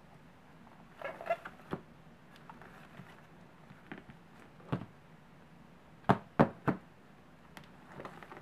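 Fingers pressing and poking slime in plastic tubs, giving a series of sharp, squishy clicks and pops. The loudest three come in quick succession about six seconds in.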